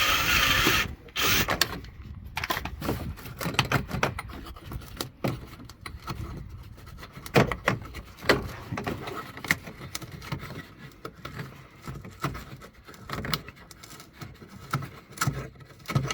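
A power drill-driver running briefly and cutting off about a second in, followed by scattered clicks, knocks and rubbing of hand tools and parts being handled.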